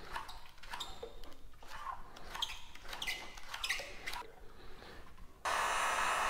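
Paper backing liner crackling and rustling as it is peeled off an adhesive tank grip pad. About five and a half seconds in, a heat gun starts suddenly and blows steadily, the loudest sound.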